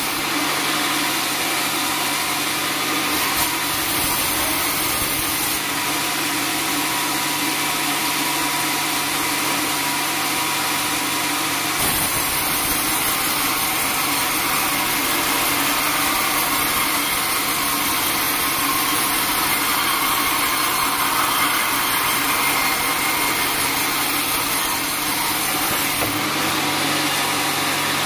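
Band sawmill running steadily, its blade sawing through a teak log, a constant machine hum and hiss whose tone shifts slightly about twelve seconds in.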